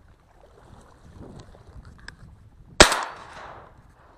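A single shotgun shot, sharp and loud, about three-quarters of the way in, its report fading over about a second. Before it, faint rustling of reeds brushing the camera.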